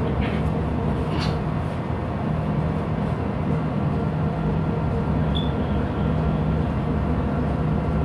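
Steady low drone of a ship's engine-room machinery heard on the bridge, with a couple of brief knocks about a second in.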